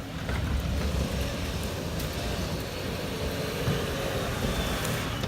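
A car's engine running as it drives, with steady noise across the range and a faint steady hum.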